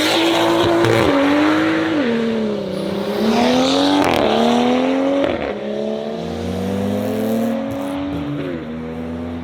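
Car engine accelerating hard through the gears: its pitch climbs, then drops sharply at each upshift, four or five times.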